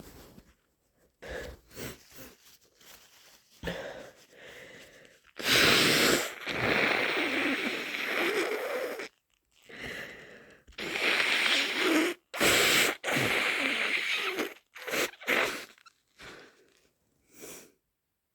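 A person with a head cold sneezing and giving loud, wet, snotty nose blows, several in a row, after a few quieter short sounds at first. The sneezes are being induced.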